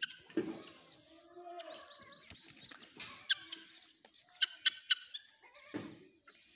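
Fowl clucking and calling in short low notes, with a quick run of three sharp high chirps about four and a half seconds in.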